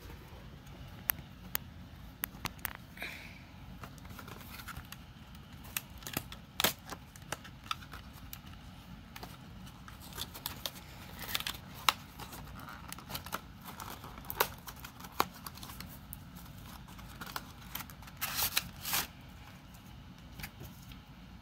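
Cardboard box and plastic tray packaging being handled and opened: a string of sharp clicks and taps with crinkling rustles, the loudest crinkles about halfway through and again late on.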